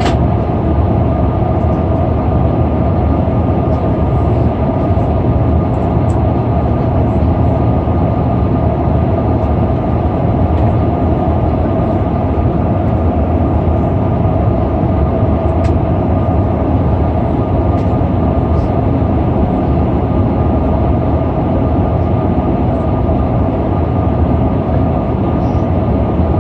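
Steady cabin noise inside an Airbus A340-600 in flight: a loud, even drone of airflow and its four Rolls-Royce Trent 500 engines, with a couple of steady hum tones running through it.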